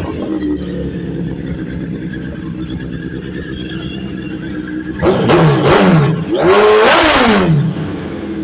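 2003 Suzuki Hayabusa's inline-four engine idling steadily, freshly running on a new wiring harness and spark plugs. About five seconds in it is revved twice in quick blips, then once more in a longer rev that rises and falls back to idle.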